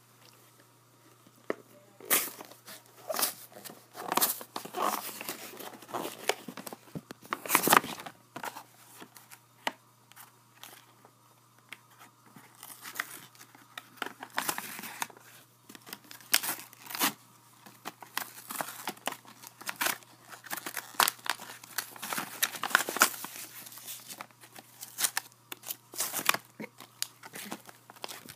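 Clear plastic blister packaging of a toy figure set being torn open and handled, with irregular crinkles, crackles and snaps, one louder snap about eight seconds in.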